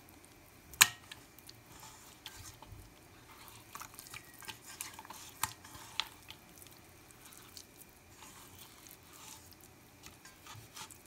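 Wet, squelching rubbing as a bare hand works salt-and-turmeric paste into pieces of tilapia in a stainless steel bowl. It comes with scattered soft clicks and taps against the bowl, the sharpest about a second in.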